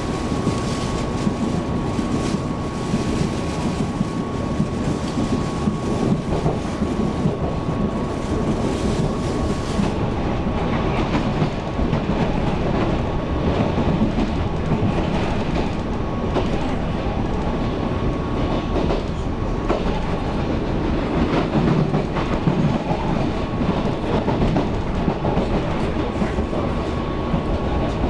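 Running sound inside a Taiwan Railways EMU700 electric multiple unit: steady wheel-on-rail rumble with clickety-clack over rail joints and a faint constant high tone, as the train runs in towards a station stop.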